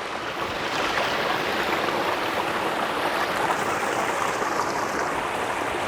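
Steady rush of water from a waterfall and its rocky stream, an even hiss without breaks.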